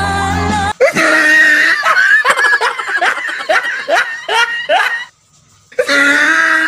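Music cuts off abruptly, then loud laughter follows in a rapid string of short bursts. It breaks off for about half a second two-thirds of the way through and starts again.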